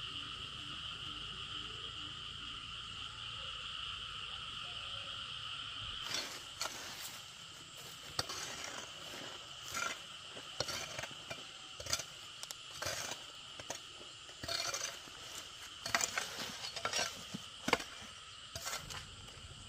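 Steady high-pitched insect chorus; from about six seconds in, a metal hoe chops into dry, stony dirt at irregular intervals, roughly once a second, digging a trench, with the chorus continuing underneath.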